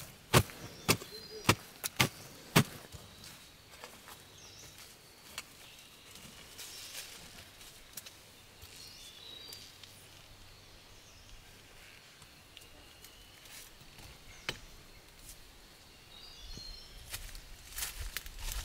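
A hoe chopping into dry forest soil, five sharp strikes about two a second, then stopping. Birds chirp faintly, and footsteps rustle through leaf litter near the end.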